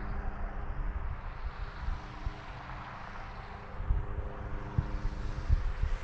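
Steady rush of interstate highway traffic, with a faint low steady hum and irregular wind buffeting on the microphone.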